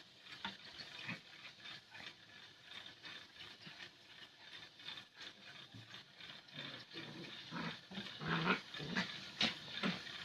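Two dogs, one small and one large, playing together: short dog noises and scuffling sounds, busier and louder over the last few seconds.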